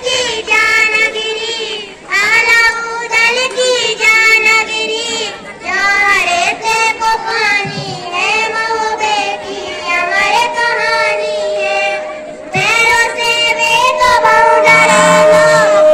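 A girl singing a folk song. About halfway in, a steady held instrumental note joins beneath the melody.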